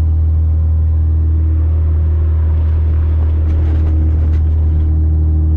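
Car engine running steadily: a loud, even low drone that does not rise or fall.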